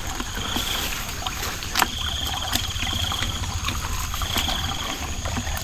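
Water sloshing and trickling with a low rumble, while a small animal's high, rapid trill repeats every second or two. There are a couple of sharp clicks about two seconds in.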